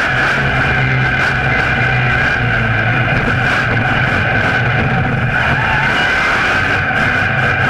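Monster truck engine running steadily at high revs, with tyres scrubbing on asphalt as the truck spins donuts.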